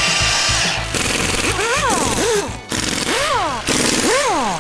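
Edited-in cartoon sound effects: a buzzing, drill-like mechanical noise for the first second. Then crackling electric-zap hiss that cuts in and out abruptly, with a string of rising-then-falling whooping tones over it.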